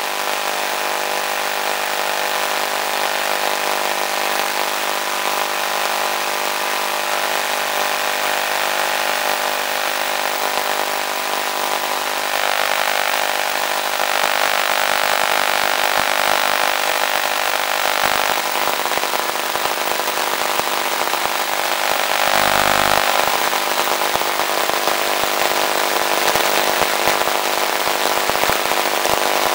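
Small electric motor and propeller of an RC motor glider running steadily under power, heard through the onboard FPV camera's microphone as an even whine of several steady tones over hiss. A brief low rumble about 22 seconds in.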